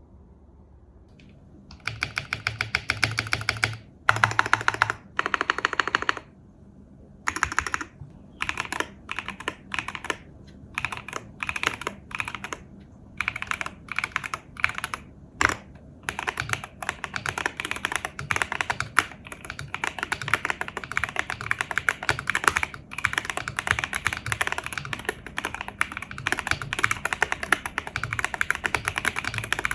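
Mechanical keyboard typing on an M1W V3 fitted with AKKO Cream Yellow Pro linear switches and tape-modded. It comes in short bursts of rapid keystrokes with pauses at first, then settles into continuous fast typing from about halfway in.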